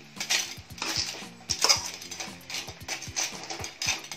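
Metal spatula scraping and clanking against a stainless steel wok as crab pieces in thick masala are stirred, in repeated strokes two or three a second.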